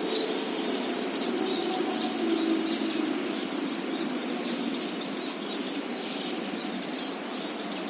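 City park ambience: many small birds chirping and tweeting throughout, over a steady low rumble of city traffic.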